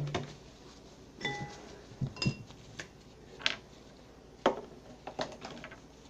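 Light clinks and taps of a glass mixing bowl being handled, about eight scattered through, a few with a short ringing note.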